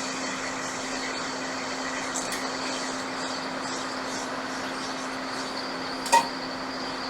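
Hot air rework station blowing steadily with a constant low hum, heating a chip on a MacBook logic board to desolder it. A short click about six seconds in.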